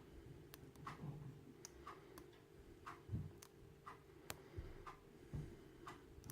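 Faint, light metallic clicks, about two a second, of a lock pick working the pins inside a ball-bearing dimple padlock cylinder.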